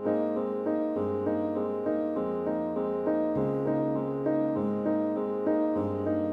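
Background piano music: a steady pattern of short repeated notes over a bass note that changes about once a second.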